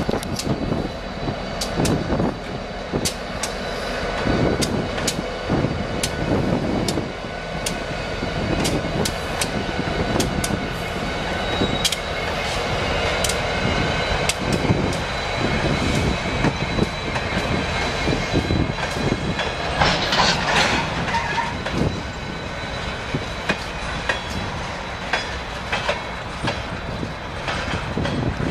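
A Norfolk Southern freight train passes close by: diesel locomotives rumble past, followed by freight cars whose wheels clack steadily over the rail joints. About two-thirds of the way through there is a brief high-pitched wheel squeal.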